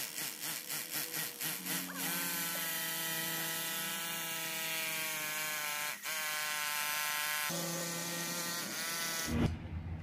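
Electric drill boring down into a floor tile: run in short, even pulses for the first couple of seconds, then held at a steady whine with a brief let-off about six seconds in, stopping abruptly just before the end.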